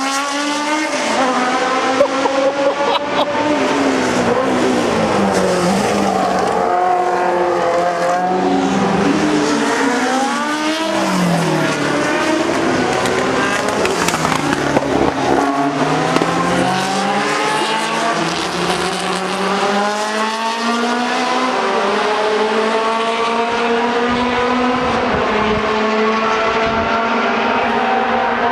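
Engines of several historic Formula 1 cars running at high revs, often two or more at once, their pitch rising and falling as they accelerate, slow and pass.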